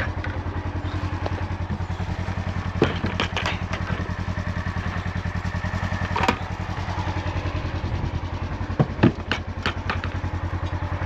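A farm machine's engine idling steadily with an even, low pulse, with a few knocks and clatters over it.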